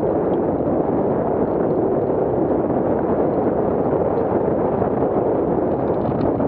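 Wind from the hang glider's flight rushing over the microphone of a camera mounted on its wing: a loud, steady, deep rumble of wind noise.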